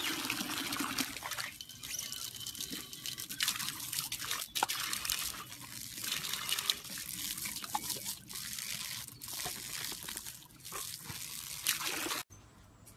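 Water splashing and dribbling in uneven spells with small clicks as a German Shepherd plays in a bowl of water and the wet mud beside it; the sound cuts off suddenly near the end.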